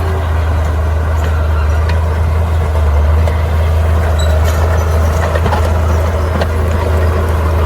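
Bulldozer's diesel engine running steadily under load with a deep drone, with scattered light clicks and knocks over it.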